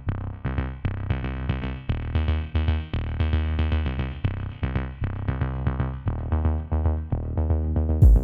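Electronic background music: quick repeated synthesizer notes over a heavy bass and drum-machine beat.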